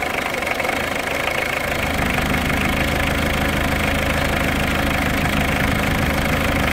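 Peugeot 205's 1.8-litre four-cylinder diesel engine idling shortly after a cold start, having stood unused for a while. The idle grows slightly louder and fuller about two seconds in.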